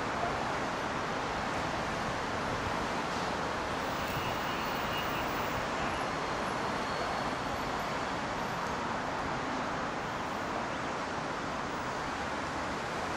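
Steady rush of city road traffic, an even noise with no single vehicle standing out.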